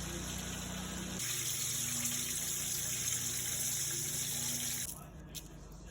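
Water running steadily from a tap, which cuts off suddenly about five seconds in.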